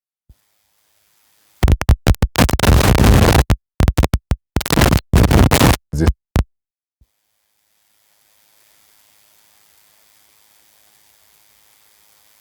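Loud, harsh scratching noise in quick on-off spurts for about five seconds, then cutting off to silence, with a faint hiss near the end.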